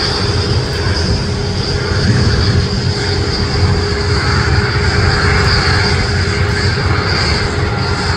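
Boeing 737 airliner's jet engines during landing rollout: a steady loud rumble with hiss, the hiss swelling somewhat about halfway through.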